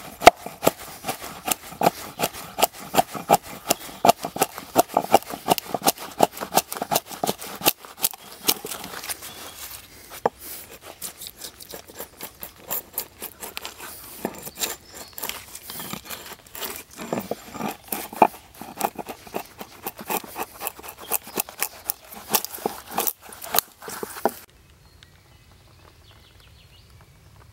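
Axe blade hewing a split wooden plank: quick, sharp chopping strikes into the wood, about three a second at first and then more spaced out. The chopping stops a few seconds before the end.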